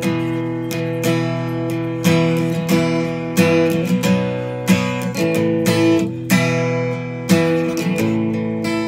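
Acoustic guitar strummed, chords ringing out with a sharp strum about every second.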